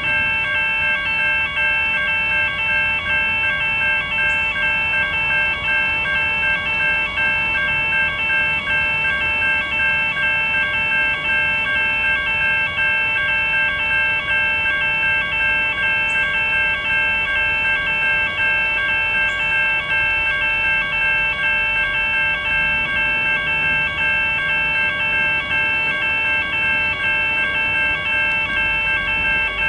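Electronic railway crossing warning bells ringing in a rapid, even, unbroken repeating chime, the signal that a train is approaching or at the crossing.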